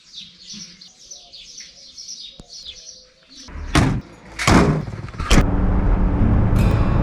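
Small birds chirping in quick repeated calls. A little past halfway there are three loud sudden sounds, and then a diesel engine, presumably the Mercedes G 250 GD Wolf's, starts running steadily.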